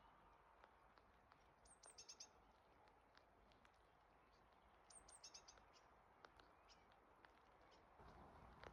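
Faint songbird singing on a quiet evening: a short high phrase of a few quick notes, given twice about three seconds apart, with scattered single chirps between, over a faint background hiss.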